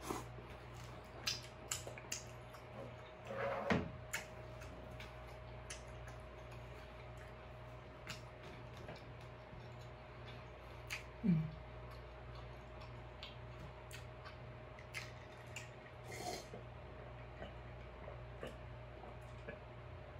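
Close-miked mouth sounds of eating king crab: scattered lip smacks, finger licking and wet chewing clicks. Two short low 'mm' hums falling in pitch come about four and eleven seconds in.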